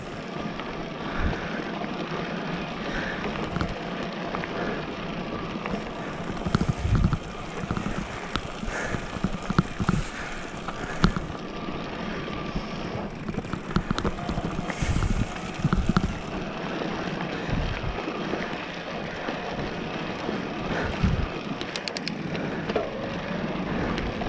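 Haibike XDURO electric mountain bike rolling down a dirt singletrack: steady tyre noise on loose dirt with frequent small knocks and rattles from the bike. Wind buffets the microphone in low gusts.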